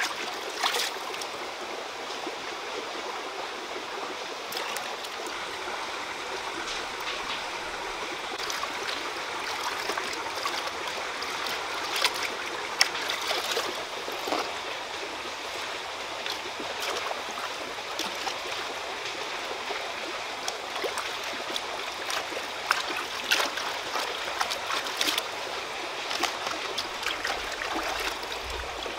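Shallow rocky stream flowing steadily, with scattered splashes and clicks from hands washing food in the water.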